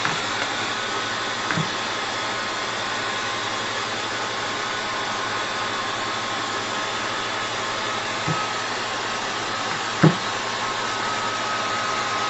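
Hair dryer blowing steadily, drying a small dog's fur, with a faint steady whine over the airflow. A few soft thumps break in, the loudest about ten seconds in.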